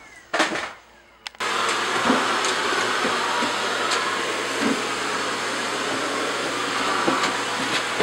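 LG canister vacuum cleaner running with a steady whooshing noise over a low hum as its floor nozzle is pushed across the floor. The sound begins abruptly about a second and a half in, with a few faint knocks of the nozzle and hose.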